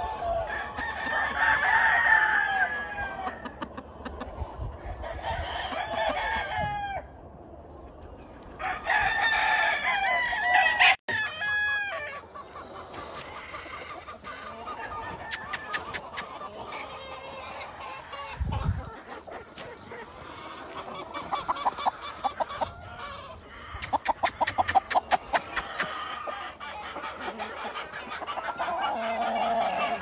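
Gamefowl roosters crowing: three long crows in the first eleven seconds, then softer clucking and short calls with another crow near the end.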